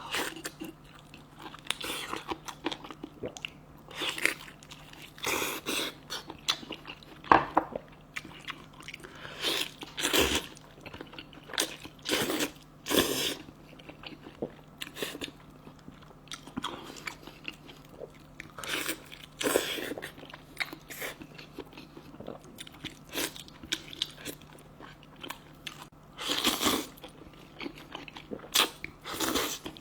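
A person eating close to the microphone: irregular bites and chewing, with louder bites every second or two.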